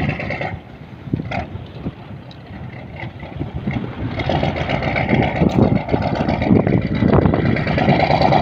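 A boat's motor engine chugging steadily, then dropping much quieter about half a second in and building back up from about four seconds in, with a few knocks in the quieter stretch.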